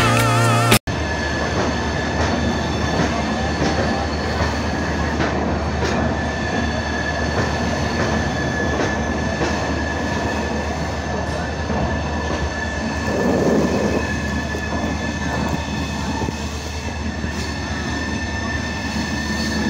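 Coaches of the Vikramshila Express passenger train rolling past along the platform as it departs: a steady rumble of wheels on rail with a thin, continuous high whine. The rumble swells briefly about two-thirds of the way through.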